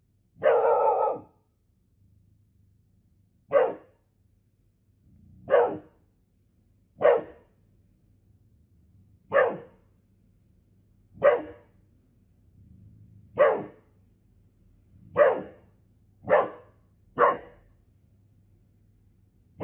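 A golden retriever barking: one longer bark at the start, then single sharp barks about every two seconds, coming quicker near the end.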